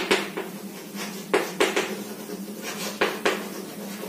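Chalk writing on a chalkboard: several sharp taps as the chalk strikes the board, with light scraping between them.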